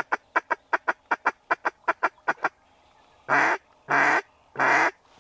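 Duck quacking: a quick run of about fifteen short quacks, then after a short pause three long, drawn-out quacks.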